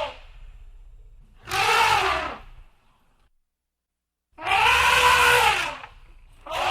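Elephant calls: two full pitched calls about a second long, about 1.5 s and 4.5 s in, each rising and then falling in pitch, with the tail of one call at the start and another beginning at the very end. A low rumble sits under the calls.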